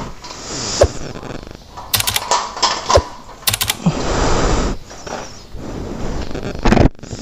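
Irregular clicks, knocks and metallic rattles of a motorcycle being handled, with short runs of rapid ticks about two and three and a half seconds in.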